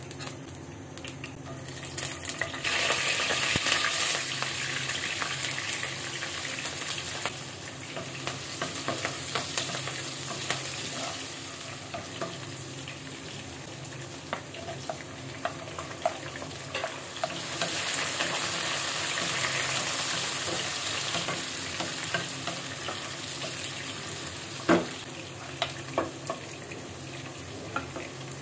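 Sliced onions and whole spices sizzling in hot oil in a nonstick wok while being stirred. The sizzle swells about two seconds in and again past the middle. Scattered sharp clicks and one loud knock of a utensil on the pan come near the end.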